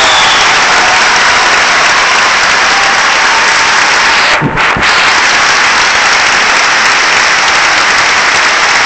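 Audience applauding steadily. The sound briefly dips about halfway through.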